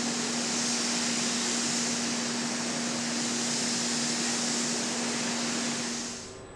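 Steady hiss and hum of factory equipment, such as ventilation, on an assembly floor: an even, bright hiss over a single steady low hum, with no distinct knocks or clicks. It fades out about six seconds in.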